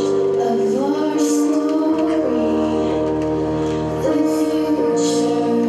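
Music with held keyboard or synthesizer chords that change every second or two over a steady bass, and a few short cymbal swishes.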